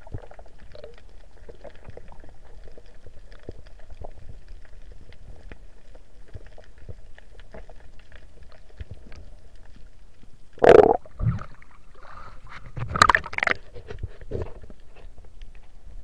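Muffled underwater sound picked up by a submerged camera: a steady low rumble with faint scattered ticks, broken by two short, louder muffled sounds about 11 and 13 seconds in.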